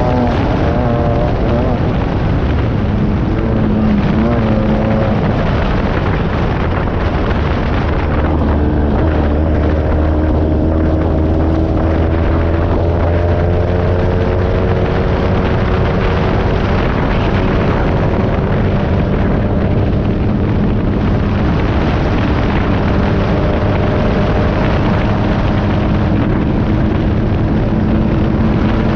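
Air-cooled VW engine of a Class 9 off-road buggy running at speed, heard from inside the car over heavy road, rattle and wind noise. The engine note drifts slowly up and down, with a deeper drone from about eight to fourteen seconds in.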